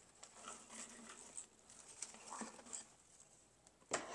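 Faint rustling and crackling of a dried bittersweet garland being handled and arranged along a mantel, with a single sharp knock about four seconds in.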